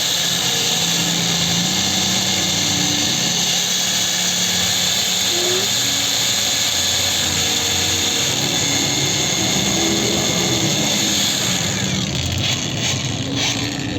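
Cordless angle grinder running with no load, a steady high whine. It begins to wind down near the end.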